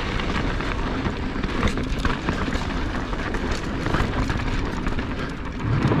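Mountain bike riding down a dirt trail: steady wind rush on the mount-camera microphone and tyres rolling over dirt, with frequent small rattles and clicks from the bike. A heavier low thump comes just before the end.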